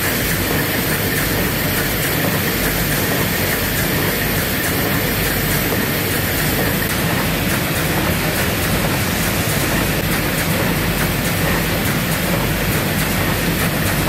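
Automated pad-printing machine running: a steady mechanical noise with many rapid fine clicks.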